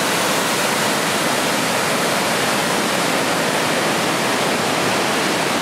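Steady rush of Rawana waterfall, water pouring down a cascade and over boulders under a roadside bridge.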